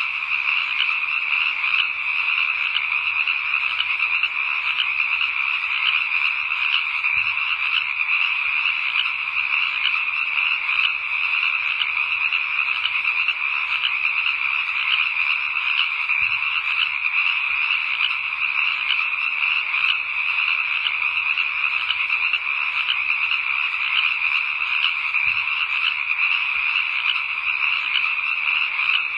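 A dense, steady chorus of calling frogs, used as night ambience.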